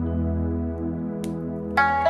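Slow new-age background music of held keyboard tones, with a plucked string note ringing out near the end. A single faint crackle from the fireplace fire is heard about halfway through.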